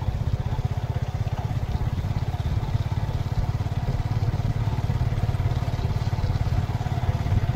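Motorcycle engine running steadily at cruising speed, with road noise, heard from the rider's seat.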